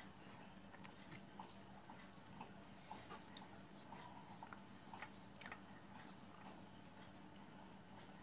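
Faint sounds of a person eating by hand from a steel plate: chewing with scattered small clicks, over a steady faint hum.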